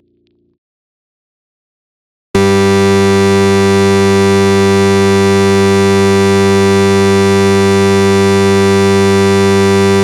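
Loud, steady synthesized buzzer tone of a mock emergency-alert broadcast, harsh and rich in overtones. It starts suddenly about two seconds in after near silence.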